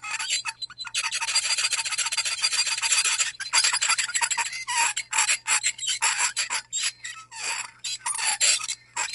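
A metal fork scraped over a plate: one long scrape of about two seconds, then a quick run of short, irregular strokes, with a thin high squeal riding on the rasp.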